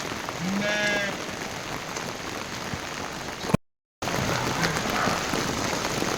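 Steady patter of rain falling on a surface. About a second in comes a short wavering high call, and the sound cuts out completely for a moment just past halfway.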